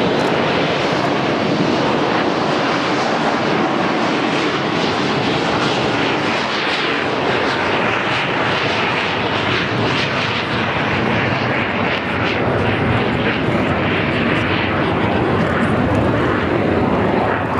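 Blue Impulse Kawasaki T-4 jet trainers flying past in formation, their twin turbofan engines making a steady, loud jet rush.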